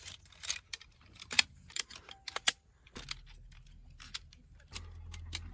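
A series of irregular light clicks and taps, about a dozen, as of small hard objects being handled, over a faint low hum.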